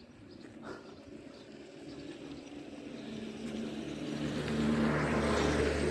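A motor vehicle's engine approaching, growing steadily louder until it is near, with its engine note coming in clearly about four seconds in.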